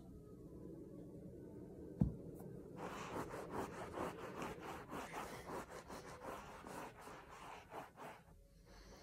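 A hand-held chenille microfibre scrubber rubbing back and forth over a wool carpet in quick strokes, about three a second, scrubbing in carpet refresher. A single thump comes about two seconds in, just before the scrubbing starts.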